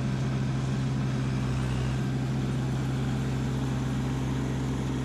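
Kubota LX2610 compact tractor's three-cylinder diesel engine running steadily under load, driving its front-mounted snowblower, with the rush of snow thrown from the blower chute.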